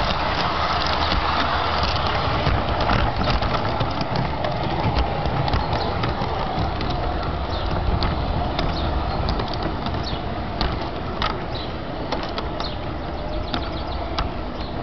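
LGB garden-scale model train running on outdoor track: a steady rumbling hiss with many irregular sharp clicks, easing off a little in the second half.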